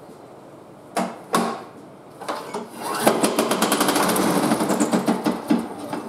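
Craftsman lawn mower's small engine pull-started: two sharp knocks about a second in, then from about three seconds it fires on fuel sprayed into the cylinder and runs briefly with a rapid clatter before stopping. The owner takes the clatter for the blade hitting something, the sign of a bent crankshaft.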